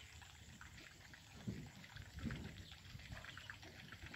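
Fishing reel being cranked to retrieve a lure, giving faint, quick clicking from about a second and a half in, with two low thumps of handling.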